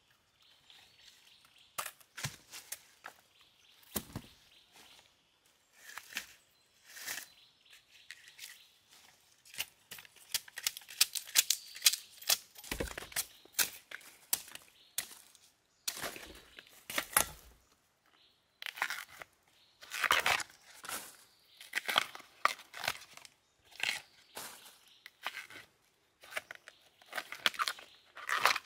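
Tough husk sheaths being torn off fresh bamboo shoots by hand: irregular crackling rips and crunches, coming thickest through the middle and the last third.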